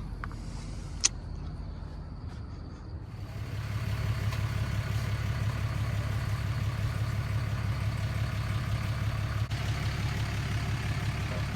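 A single sharp click about a second in, then from about three seconds on a motor vehicle engine idling steadily.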